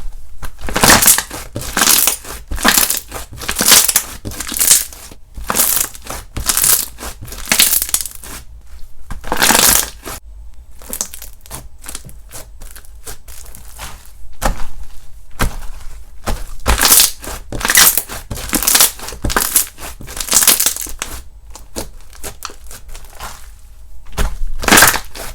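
Slime being squeezed and pressed by hand in a run of short, crackly squishes, about one or two a second, easing off briefly in the middle and again near the end.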